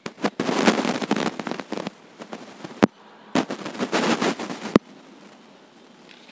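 Thin plastic grafting tape crackling as it is stretched and wound tightly around grafted papaya stems. It comes in two spells of crackling, about two seconds and a second and a half long, with sharp clicks between and at the end.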